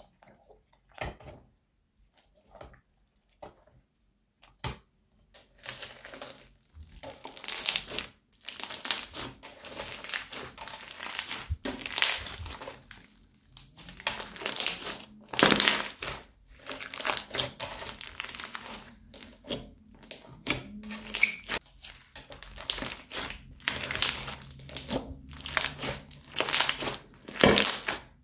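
Crunchy slime stirred with a spatula in a bowl gives a few scattered sticky clicks. From about six seconds in it is stretched and kneaded by hand, crackling in dense, irregular bursts.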